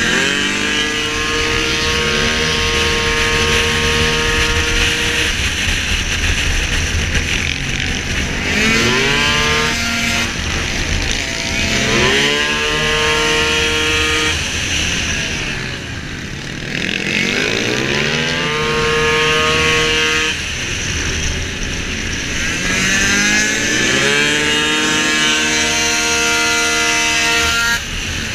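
Racing scooter engine at full throttle. Its pitch climbs sharply about five times, each time settling onto a steady high note, and drops away briefly twice near the middle as it slows.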